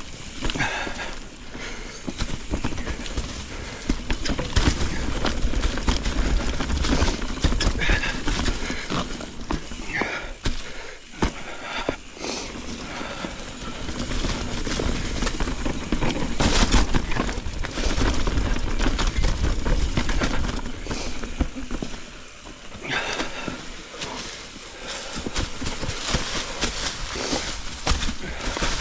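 Mountain bike ridden down a leaf-covered rocky singletrack: tyres rolling over dry leaves, dirt and rock, with many small rattles and knocks from the bike over the bumps and a steady low rumble.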